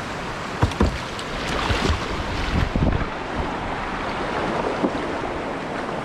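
Rushing whitewater on a river rapid with wind buffeting the microphone, and a few low thumps in the first three seconds.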